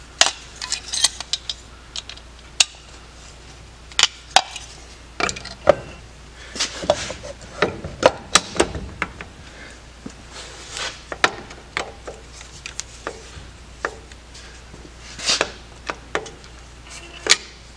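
A grey plastic eight-tower distributor cap being worked by hand onto a small-block Chevy points distributor: irregular sharp clicks, taps and knocks of hard plastic against the metal housing, with short rubbing and handling noises between them. The fit is stubborn, a lot harder than it needed to be.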